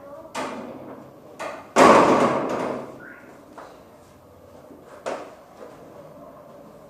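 A few separate knocks and bangs of household things being handled, like doors or cupboards being shut. The loudest comes a little under two seconds in and is followed by a brief noisy clatter.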